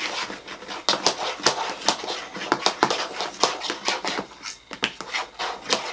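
Spoon stirring a glue and shaving-gel slime mixture in a bowl, with quick, irregular clicks and taps against the bowl.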